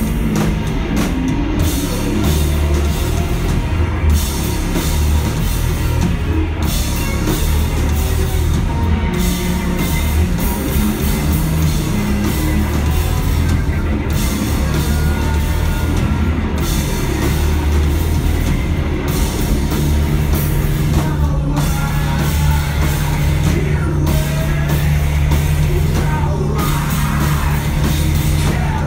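Rock band playing live: a full band with a drum kit, loud and continuous.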